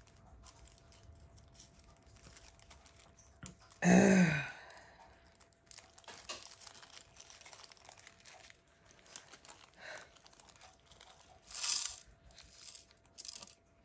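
Small plastic bags of diamond-painting drills crinkling and rustling as they are handled, with scattered small clicks and a louder rustle near the end. A brief wordless vocal sound about four seconds in.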